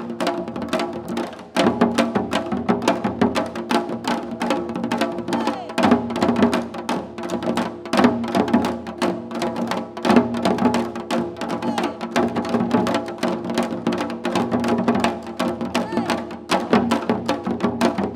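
Korean janggu hourglass drums played in a fast, dense rhythm of rapid strokes, with a sustained pitched melody over them.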